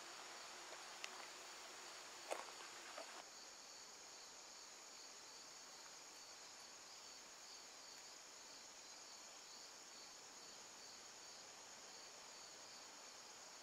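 Faint, steady chorus of insects: a high continuous trill with a pulsing note beneath it, with a few soft clicks in the first three seconds.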